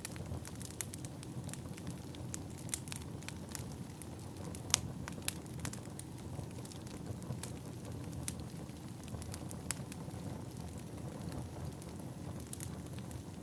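Firewood burning: irregular sharp crackles and pops over a steady low rumble of the flames.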